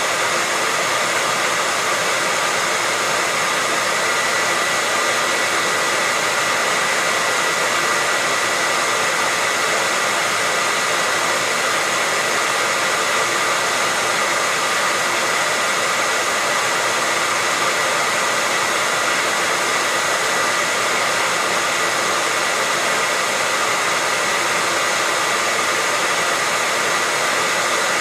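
Hair dryer running continuously at a steady speed: an even rush of blown air with a steady high whine over it, unchanging throughout.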